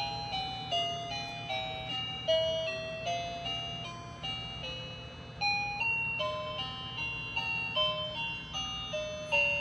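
Light-up baby play gym's toy piano playing a simple electronic tune: single notes one after another, about two or three a second, each struck sharply and fading.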